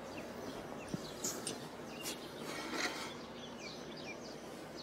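Birds chirping faintly here and there over a steady outdoor hush, with a few light knocks and shuffles in the first three seconds as metal patio chairs are sat in.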